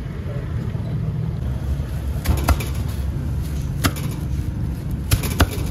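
A cleaver chopping through a roast chicken onto a thick wooden chopping block: five sharp chops, two close together, then one, then two more. A steady low rumble runs underneath.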